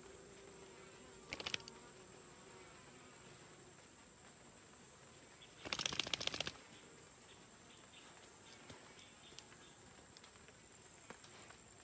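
Faint buzzing of honeybees around a hive entrance, with two brief, louder noisy bursts made of rapid ticks, about one and a half and six seconds in.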